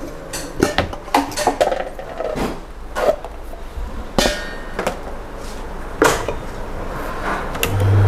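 Knocks and clinks of a table-top wet grinder's stainless-steel drum and plastic fittings being taken off and fitted by hand. Near the end the grinder's motor is switched on and runs with a steady low hum.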